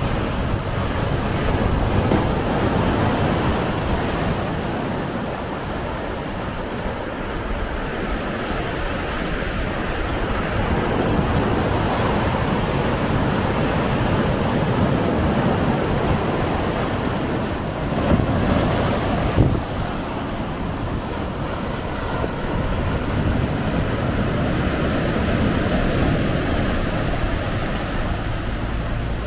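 Surf breaking and washing over a low rocky reef shelf at the waterline, a steady rushing that swells and eases with each wave. There is a brief louder burst about eighteen seconds in.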